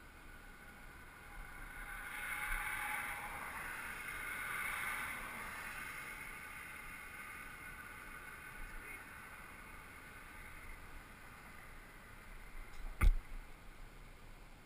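A vehicle passing on the highway bridge, its sound swelling over a couple of seconds and slowly fading away. A single sharp knock near the end.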